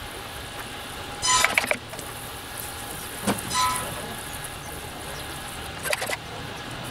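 Handheld pump pressure sprayer being worked: three short mechanical squeaks a couple of seconds apart, the first the loudest.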